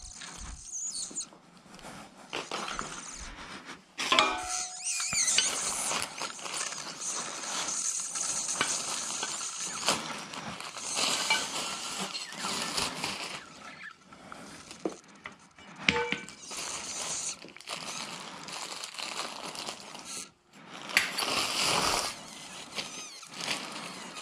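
Handling noise: aluminium cart tubes clinking and scraping, and plastic-wrapped parts rustling, with scattered sharp knocks.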